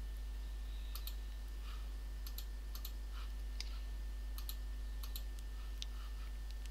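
Computer keyboard being typed on in sparse, irregular keystrokes, often two close together, over a steady low electrical hum and a faint high whine.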